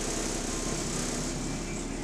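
Bus engine running steadily with a high hiss over it. The bus has a large exhaust leak.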